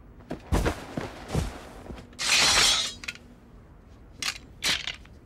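Anime sound effects: a few heavy boot steps in snow with deep thuds, then a loud harsh rasp lasting most of a second, then two sharp hits near the end.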